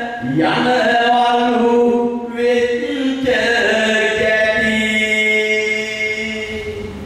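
A man chanting a Sinhala verse (kavi) solo in a drawn-out melodic style, in two long held phrases, the second fading away near the end.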